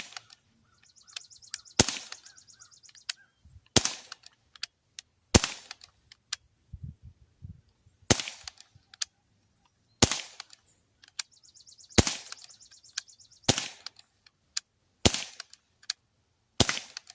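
Umarex Smith & Wesson M&P 40 .177 non-blowback CO2 BB pistol firing nine single shots, one every one and a half to two and a half seconds, each a sharp crack.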